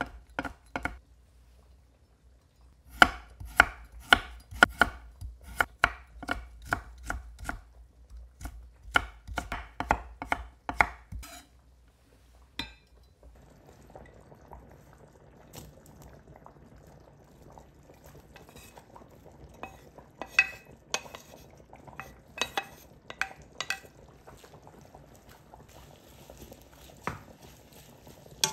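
Kitchen knife chopping on a cutting board in quick, even strokes, about two to three a second, then stopping. Later come a few light clinks of cookware over a faint steady hiss.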